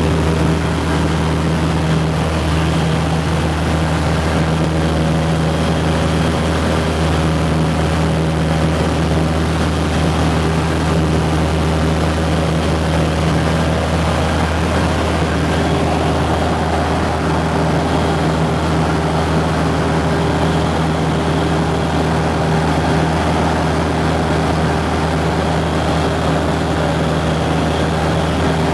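An Aviat Husky's four-cylinder Lycoming engine and propeller droning steadily in cruise flight, heard inside the cockpit.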